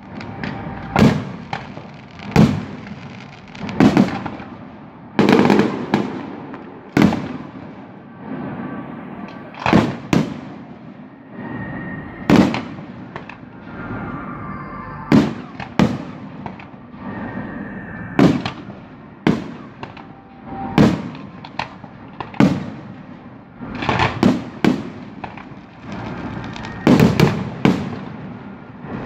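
Fireworks display: aerial shells bursting in sharp bangs about once every second or so, each trailing off in an echo, with a quicker run of bangs near the end.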